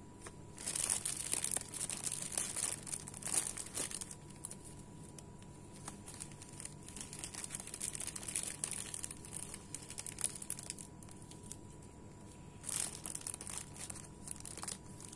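Thin clear plastic bags crinkling as hands handle them and tie them shut with plastic ribbon, in uneven bursts. The crinkling is loudest in the first few seconds and again near the end.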